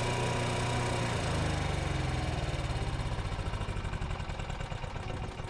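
Onan QG 4000 RV onboard generator engine, run briefly after an oil change to circulate the new oil, being shut off. It runs steadily at first, then from about a second and a half in it winds down, its pitch falling and its beats slowing.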